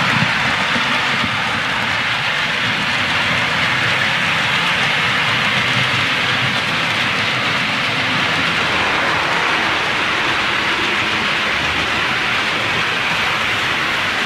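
OO gauge model trains running on the layout's track: a steady, even rolling noise of wheels and motors.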